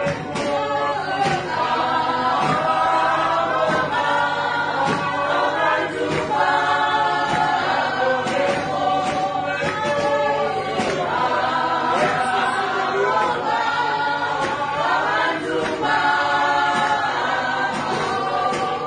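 A group of people singing a gospel hymn together, many voices at once without a pause.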